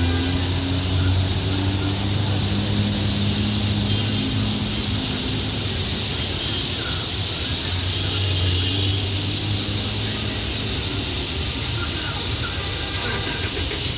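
Traffic waiting at a busy city intersection, engines idling with a low steady hum, under a dense, continuous high chatter from a large flock of birds gathering to roost.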